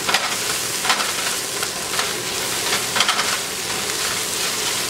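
Chopped onions, garlic and ginger sizzling in oil in a frying pan, stirred with a wooden spatula that scrapes across the pan about once a second.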